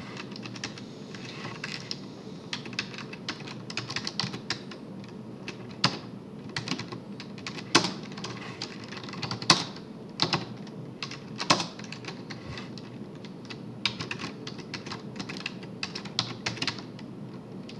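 Typing on a computer keyboard: irregular keystrokes in short runs, with a few louder single clicks among them.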